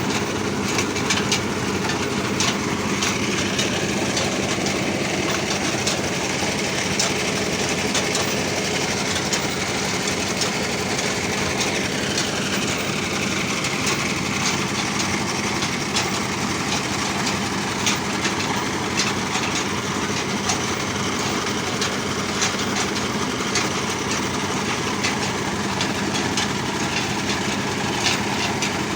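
Mayhew well-drilling rig running steadily while drilling, with a constant engine hum and frequent short clicks and knocks. A higher whine slides down in pitch about twelve seconds in.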